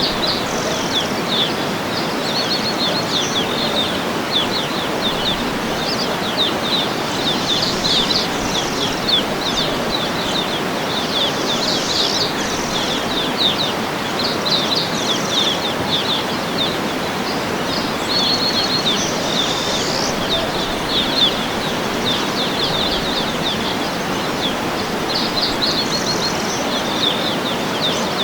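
Waterfall rushing steadily, with birds chirping and trilling above it throughout.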